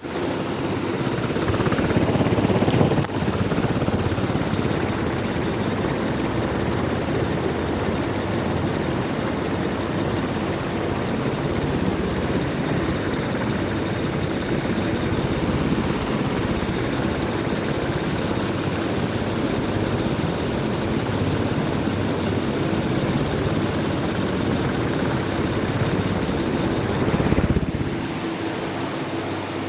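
Atomberg fan running with a steady whirring hum and a constant high-pitched whine: the noise problem the owner is complaining about.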